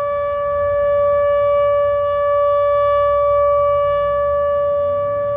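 ATI HPSS16R electronic speaker siren sounding a loud, steady, high-pitched alert tone, holding one pitch without rising or falling.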